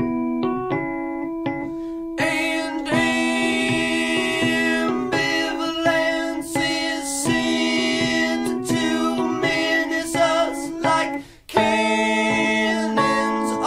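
Live song on electric keyboard and acoustic guitar. A man's singing joins in about two seconds in, and the music stops briefly about eleven seconds in before carrying on.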